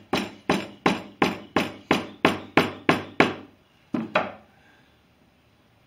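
A mallet knocking a sprue pin down into petrobond sand in a metal casting flask: about ten steady knocks, roughly three a second, then a short pause and two more knocks close together about four seconds in.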